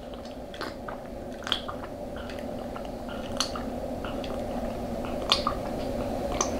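Close-miked eating sounds: wet chewing and squishy mouth noises with scattered small clicks, over a steady low background hum.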